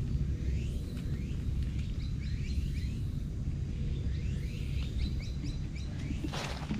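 Small birds chirping repeatedly in short rising chirps over a steady low rumble, with a brief rustling scuff near the end.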